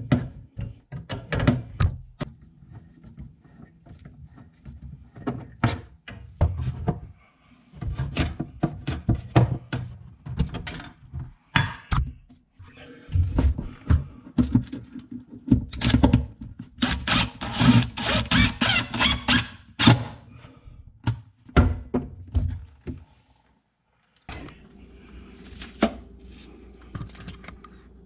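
Plumbing work on under-sink water supply lines: repeated knocks, clicks and clanks of fittings and tools as the lines are undone and refitted, with a few seconds of rushing hiss past the middle. A steady low hum starts near the end.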